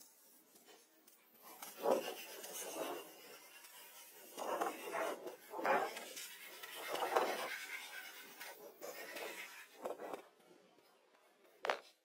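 Rough rubbing and scraping strokes on the weathered wooden planks of a door, irregular and about eight in all, with a short, sharper stroke near the end.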